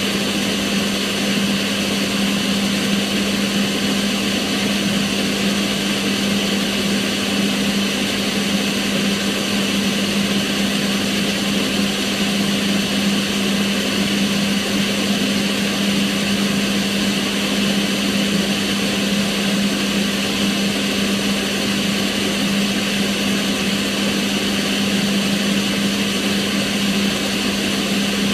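Kitchen range hood extractor fan running steadily: an even rush of air over a constant motor hum.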